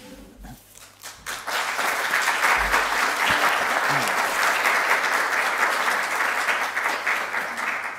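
Audience applauding in a hall, the clapping building up about a second in and then holding steady.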